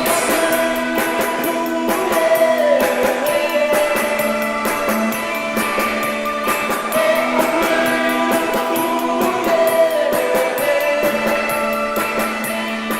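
Rock band music with guitar and drums, a melodic line sliding up and down over steady chords.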